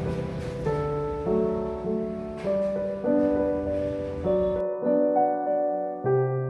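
Background piano music: a slow run of sustained notes, with a faint noisy bed under it that drops out about two thirds of the way in.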